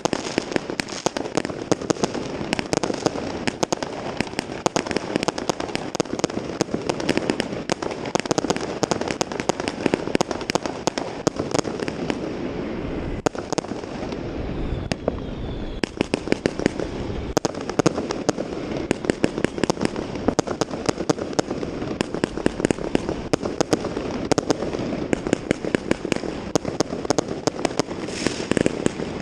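Massed New Year's fireworks and firecrackers: a dense, continuous crackle of bangs and pops from many directions, easing briefly about halfway through before picking up again.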